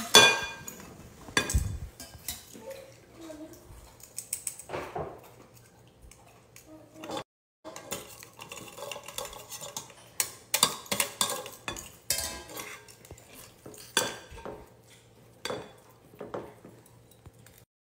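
Stainless steel potato ricer and metal utensils clinking, knocking and scraping against a glass mixing bowl as boiled potatoes are pressed through, in irregular clinks with a heavier knock near the start.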